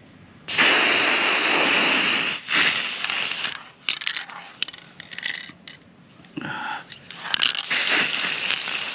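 Aerosol spray paint can spraying black paint in bursts: a long hiss of about two seconds starting half a second in, a few shorter spurts in the middle, and another long spray near the end.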